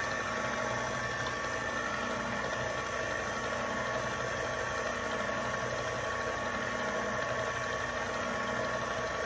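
Electric stand mixer running at a steady speed, its paddle beating pound cake batter.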